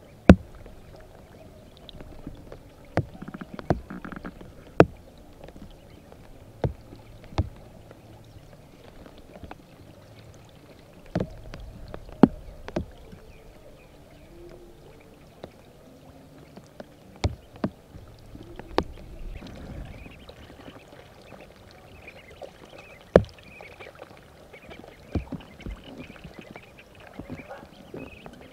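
Irregular sharp knocks and clicks, roughly one every one to two seconds and uneven in loudness, over a faint low background.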